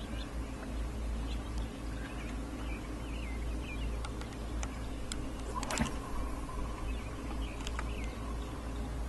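Birds chirping faintly over a steady low rumble, with a single sharp click a little past halfway.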